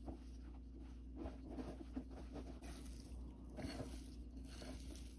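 Wire whisk stirring thick cookie dough of flour and browned butter in a bowl: faint, irregular squishing and scraping strokes.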